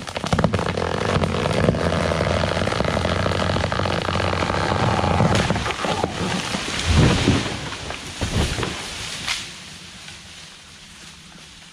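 A cut tree falling: a long stretch of cracking wood and rushing branches as it tips over, then a heavy crash into the ground about seven seconds in, and one more sharp crack a couple of seconds later.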